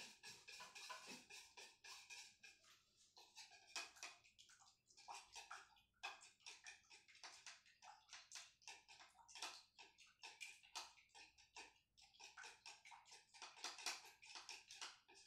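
Near silence with faint, irregular crackling ticks, several a second.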